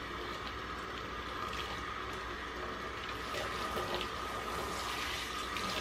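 Kitchen tap running, the water splashing off lathered hair into a stainless steel sink while hands scrub shampoo through it.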